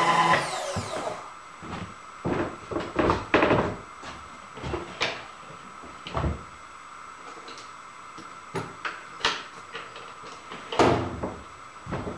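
A machine's electric motor winding down in the first second, its pitch falling as it stops. Then come scattered knocks and clunks of tools and metal parts being handled, the loudest about three seconds in and again near the end.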